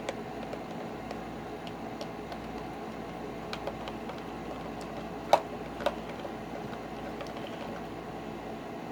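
Light clicks and taps of a mixing utensil against a bowl while slime is stirred, over a steady hiss; two sharper taps come a little past halfway.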